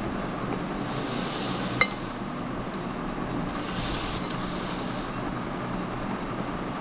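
A glass mixing bowl of waffle batter being handled: two spells of scraping and rubbing, with one sharp clink against the glass about two seconds in, over a steady low hum.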